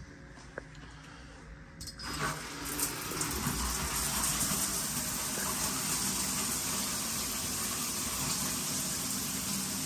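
Shower water running: a steady rush of spray that starts suddenly about two seconds in, with a few light clicks just before it.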